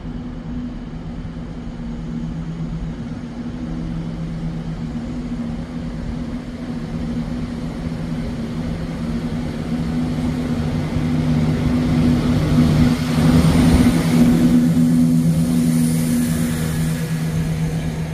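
Class 170 Turbostar diesel multiple unit running on its underfloor diesel engines, a steady low engine note that grows louder as the train comes along the platform. It is loudest as the train draws past about thirteen seconds in, with a faint high whine near the end.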